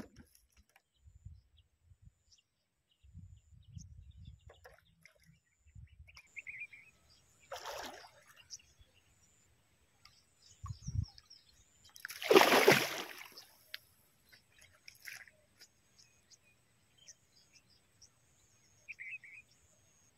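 Water sloshing and splashing at the edge of a stream, with one louder splash about twelve seconds in. A few faint bird chirps.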